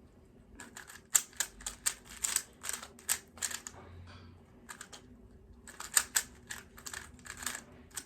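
Rubik's cube being turned fast: rapid plastic clicks as the layers snap round, starting about a second in, coming in quick runs with a short pause about four seconds in.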